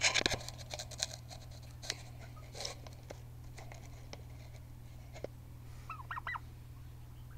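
A clatter of knocks and scrapes at the start, then scattered light taps. About six seconds in comes a quick run of four short high calls from a domestic turkey.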